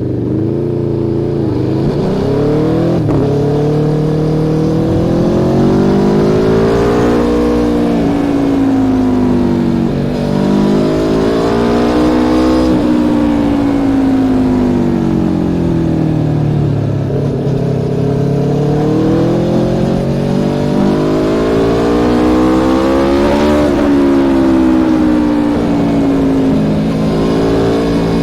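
Aprilia Tuono V4 1100 Factory's 65-degree V4 engine running through an Akrapovic exhaust, recorded close to the exhaust, while the bike is ridden. The engine pitch climbs and sinks several times as the bike accelerates and eases off, with sudden pitch drops about halfway through and again near the end.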